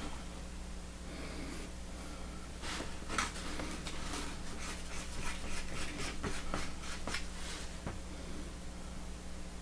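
Small wooden stick scraping and tapping on cardboard while mixing and dabbing epoxy: a run of small scratchy clicks and rubs from about three seconds in to near the end, over a steady low hum.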